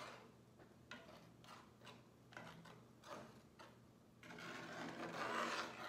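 A flat spatula scraping and stirring milk gravy in a cast-iron skillet: a run of soft strokes, then a longer, louder scrape about four seconds in.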